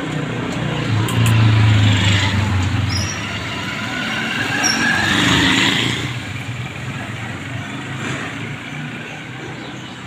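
Street traffic: a motor vehicle's engine passing close by, loudest from about one to three seconds in, with a second swell around five seconds in, then fading.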